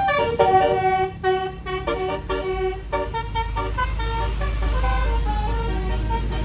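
A bus's telolet horn, a multi-note musical air horn, plays a quick tune of stepped notes, opening with a rising glide. From about two and a half seconds in, the bus's low engine rumble grows as the horn notes get fainter.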